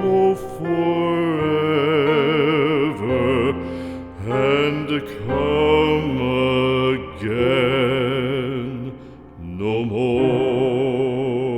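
Slow, tender music: a melody of long held notes with wide vibrato over a low sustained accompaniment, fading near the end.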